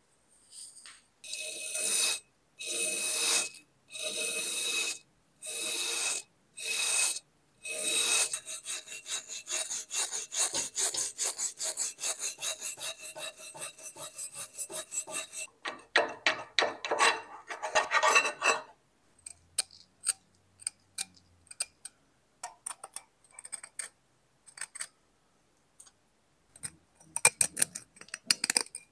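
Hand abrasion on an old knife: about six slow, long rubbing strokes a second apart, then a run of rapid short strokes, then scattered light scrapes and ticks near the end. A faint steady ringing tone carries through the strokes.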